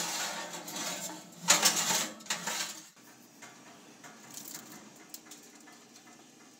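Metal roasting pan scraping and clattering over an oven's wire rack as it is slid in, in two noisy stretches; it stops about three seconds in, leaving only faint ticks.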